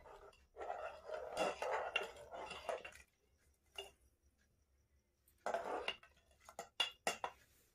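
A metal slotted spatula stirring watery khichdi in an aluminium pressure cooker, sloshing and scraping and clinking against the pot. Two spells of stirring are broken by about two seconds of silence in the middle; the second spell is sparser clicks and scrapes.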